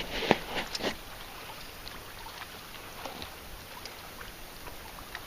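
A few sharp knocks and clicks in the first second, then quiet lapping water around a small fishing boat with faint scattered ticks.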